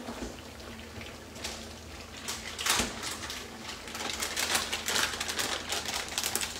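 Aubergine slices frying in hot oil in a pan, crackling and spitting. The crackle gets denser and louder about halfway through.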